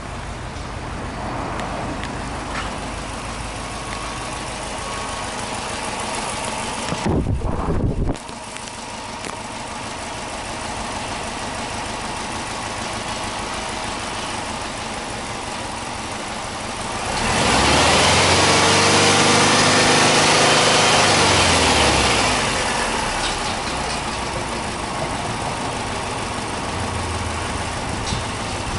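Subaru Impreza WRX STI Version IV's turbocharged flat-four idling steadily, with a loud rumble about seven seconds in that cuts off abruptly. About two-thirds of the way through the engine is blipped up into a free rev, held high for a few seconds while the revs slowly sag, then settles back to idle.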